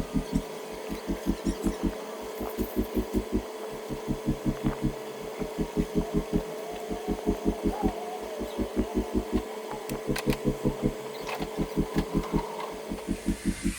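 Background music with a deep, pulsing bass beat of about four to five pulses a second, its notes shifting every second or two over a held tone.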